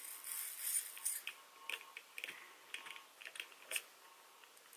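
Seed beads clicking and rattling in the spinning wooden bowl of a Beadalon Spin-N-Bead Junior bead spinner as a curved beading needle is held in them; irregular light ticks, several a second.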